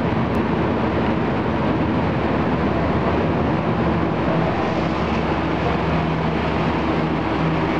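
Diesel-hauled passenger train standing at a station platform: a steady, loud mechanical rumble with a low hum.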